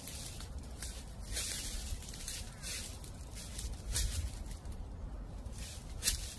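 Footsteps crunching through dry fallen leaves, a step about every second, over a steady low rumble of wind.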